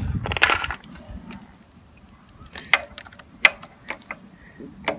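Ratchet wrench and spark plug socket extension clicking and clinking as the ratchet is worked onto the socket: a quick rattle of ratchet clicks at the start, then a few separate sharp metal clicks.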